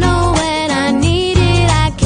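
Background pop song with a singing voice over a steady beat and bass.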